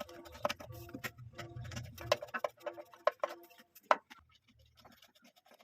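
Quick run of sharp metallic clicks and clinks, several a second, with a low handling rumble, as the blades are fitted onto a ceiling fan; it thins out to faint scattered ticks about four seconds in.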